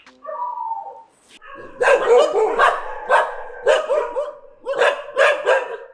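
Several street dogs barking repeatedly, a bark about every half second from a couple of seconds in, some barks overlapping, after a short falling tone at the start.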